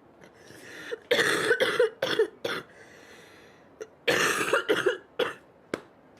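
A girl coughing in two fits of several harsh coughs each, the first about a second in and the second about four seconds in, with a breath drawn in before the first fit.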